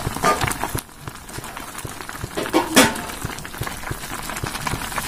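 Pan of Maggi noodles and vegetables boiling hard, a steady crackling bubble with a wooden spatula stirring through it. A couple of louder short clatters come about a quarter second in and again near the middle.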